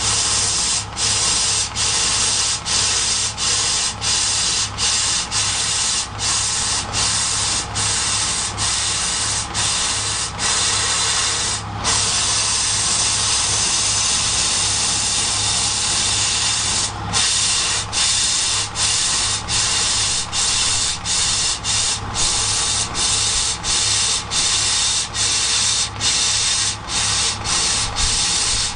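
iGolden CO2 laser cutting machine cutting 4 mm wood: a steady loud hiss over a low hum. The hiss breaks off for a moment about once a second, and for a little longer twice.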